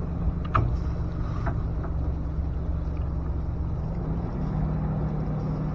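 A boat engine running steadily with a low, even hum; its pitch steps up slightly about four seconds in.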